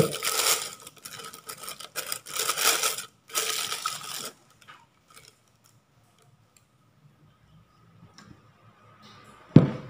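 Clear plastic piping bag rustling in three bursts as it is handled, then quiet, and a single dull thump near the end.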